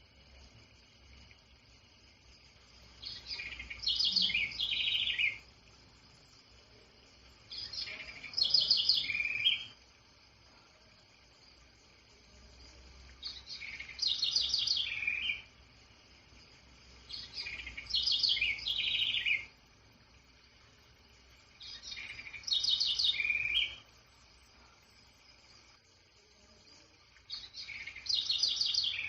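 A songbird singing the same short phrase six times, about every four to five seconds. Each phrase is a quick run of high notes lasting about two seconds, and the last is cut off near the end.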